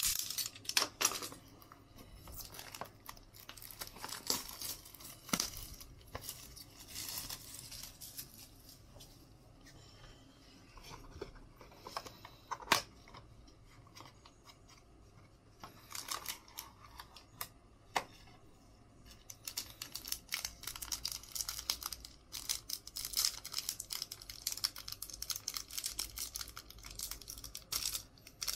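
Plastic wrapping being torn and crinkled by gloved hands as a sealed trading-card box and a card pack are opened, with scattered clicks and scrapes. There is one sharp click a little before halfway, and the rustling is densest in the last third.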